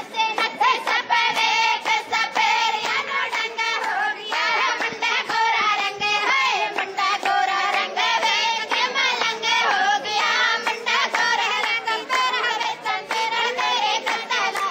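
A young woman singing, with steady rhythmic handclaps from the group keeping time.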